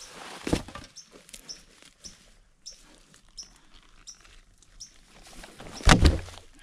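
Scattered light clicks and rustling from hand-sawing work on a birch tree across the trail, with the sawing itself paused. A knock comes about half a second in, and a loud, deep thud about six seconds in.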